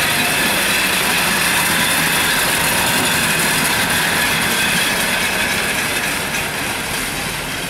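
Motorized rail inspection trolley running along the track, its motor and wheels on the rails giving a steady noise that dies down near the end as it moves away.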